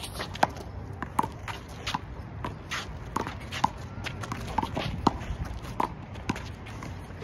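Handball rally: a small rubber ball smacked by hand and cracking off the concrete wall and court, sharp hits every half second or so, with players' shoes scuffing on the concrete.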